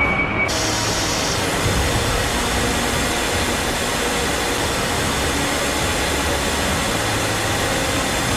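Steady, even roar of a jet aircraft in flight, engine and rushing-air noise, cutting in abruptly about half a second in and holding level without a change in pitch.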